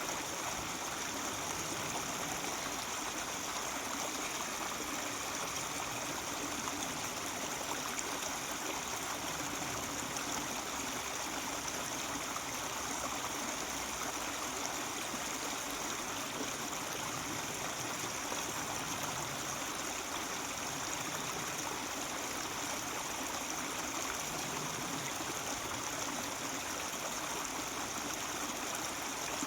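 Mountain stream babbling steadily over its bed.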